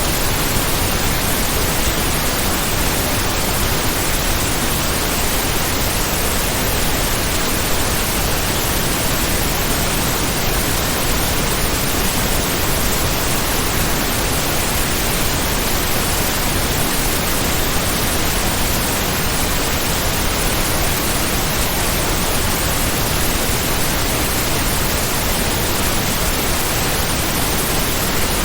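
Heavy rain sound effect: a loud, dense, steady hiss spread evenly from low to high pitches, with no separate drops, gusts or changes.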